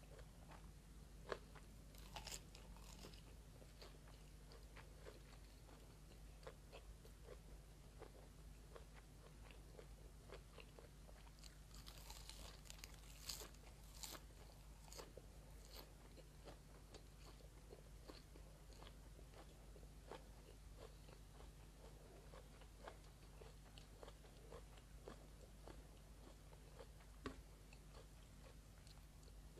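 Faint close-miked chewing and crunching of a mouthful of rice, braised pork belly and raw cabbage leaf, with small wet clicks throughout. There is a run of louder crisp bites about twelve to fourteen seconds in, over a steady low hum.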